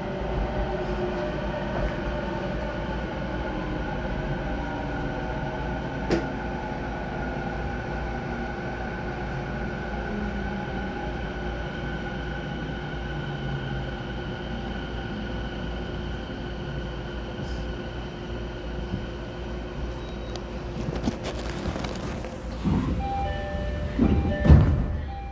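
Cab-car interior of a refurbished Tokyo Waterfront Area Rapid Transit 70-000 series electric train braking to a stop: the traction motors' whine falls slowly in pitch as the train slows. Near the end there is a hiss of air, then a chime and the doors sliding open.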